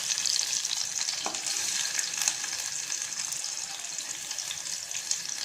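Garlic frying in hot oil with ginger and whole spices in the base of a pressure cooker: a steady sizzling hiss with scattered crackles, stirred now and then with a few light ticks of the spoon.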